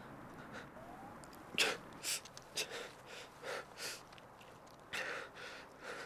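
A person gasping in short, irregular, strained breaths, about seven in quick succession.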